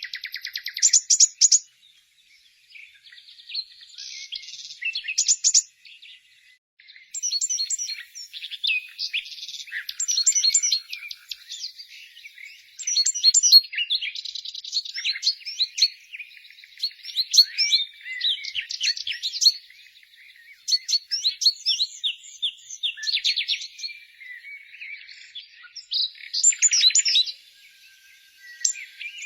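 Songbirds chirping and singing: many quick, high-pitched chirps and rapid trills, overlapping in bursts with short pauses between phrases.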